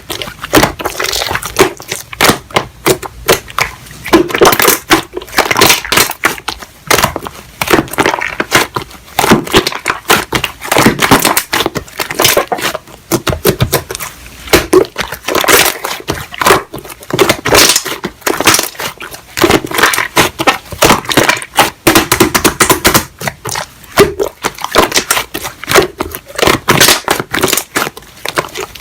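Slime being squished and pressed by hand, giving a dense run of crackling, popping clicks.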